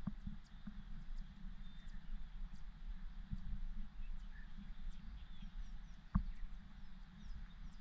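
Steady low rumble, with faint short high chirps scattered through it and two sharp knocks, one at the very start and one about six seconds in.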